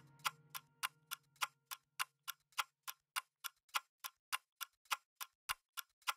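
Steady clock-like ticking, about three and a half ticks a second, as part of the edited soundtrack. The last notes of the background music fade out under it in the first half.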